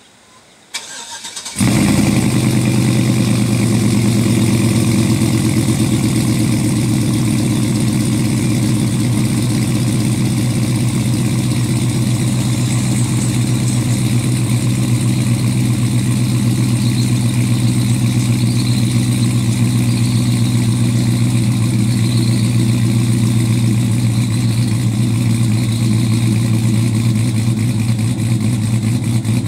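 2004 Chevy Tahoe's 5.3-litre V8, fitted with a Texas Speed & Performance stage 2 truck cam, cranks briefly on the starter about a second in and fires on a cold start. It then runs at a steady idle with an even, pulsing beat.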